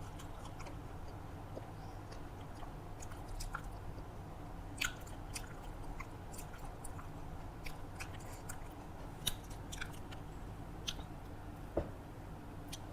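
A person chewing and eating food close to the microphone: irregular wet mouth clicks and smacks, a few sharper than the rest, over a steady low background noise.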